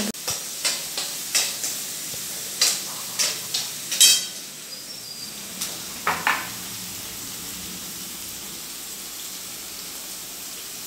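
Chopped onions and spices frying in oil in a steel kadai, sizzling steadily, while a steel spoon stirs and scrapes against the pan with a quick run of knocks in the first four seconds. There is one ringing metal clink about six seconds in, then the sizzle carries on alone.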